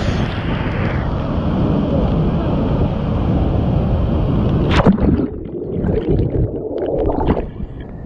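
Loud rushing and churning water from a waterfall plunge pool, the current pouring around the person standing in it; the sound turns duller about a second in. A sharp splash or knock comes about five seconds in.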